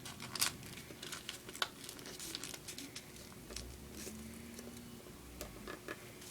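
Origami paper rustling and crinkling in scattered light crackles as it is turned over and creased by hand, most of them in the first half.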